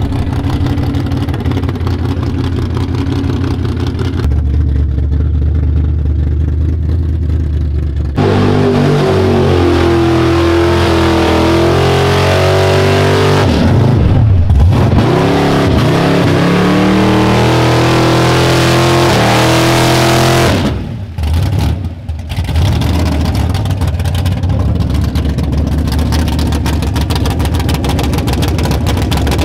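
Mud bog truck's engine running steadily at first, then about eight seconds in going to full throttle and revving hard, its pitch rising and falling as it works through the mud pit. Near the end the revs drop off twice for a moment, then climb again.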